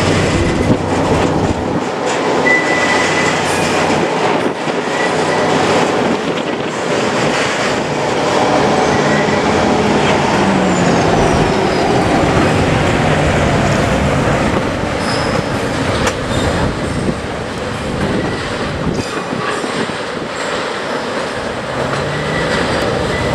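Freight train wagons rolling past on steel rails, with a steady rumble, repeated clicks over rail joints and brief, thin wheel squeals. A low engine hum is heard in the first couple of seconds.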